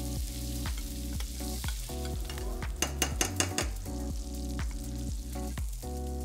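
Filet steaks sizzling in foaming butter and oil in a cast-iron pan as they are basted, with utensil sounds against the pan and a quick run of sharp metal clicks about three seconds in. Soft background music plays underneath.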